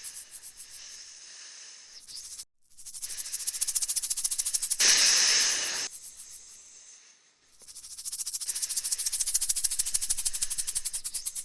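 Rattlesnake rattling: a fast, even buzzing rattle that fades out and breaks off twice and starts up again. About five seconds in, a loud snake hiss lasting about a second sounds over it.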